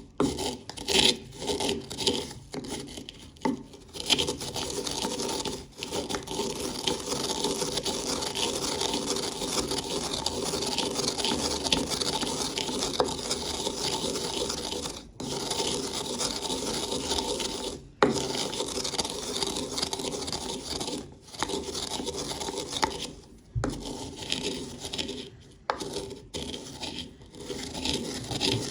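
Pringles potato chips being ground in a spice grinder: a dense, rasping grind that runs for several seconds at a time, broken by short stops.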